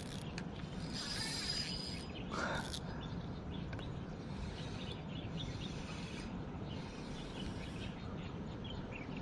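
A Daiwa 2000-size spinning reel being cranked while a hooked fish is played on a light rod, giving soft reel and line handling noise. Insects and birds chirp in the background.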